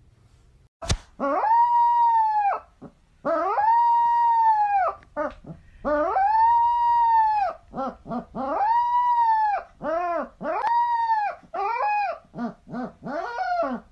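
A puppy howling: a run of long, high howls, each about a second and a half, rising at the start and dropping away at the end. Near the end they break into shorter, choppier howls. A single sharp click comes just before the first howl.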